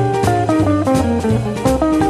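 Blues music recording: a guitar playing single-note lines over a stepping bass line and a drum kit.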